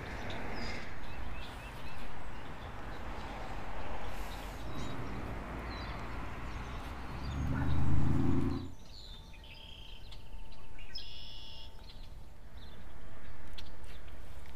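Outdoor background noise that swells and fades, dropping away about two-thirds through. After that, small birds chirping stand out.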